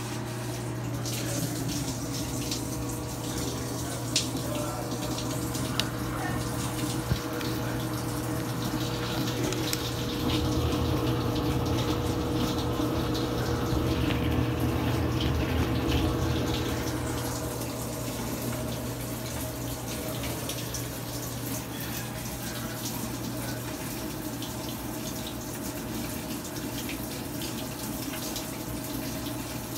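Samsung top-load washer filling in its Smart install test mode: water rushes steadily into the tub through the inlet valve, over a steady low hum. It grows louder for several seconds in the middle, then settles back.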